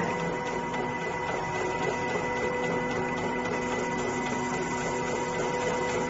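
Wire harness taping machine running steadily: an even motor whine over a constant mechanical noise.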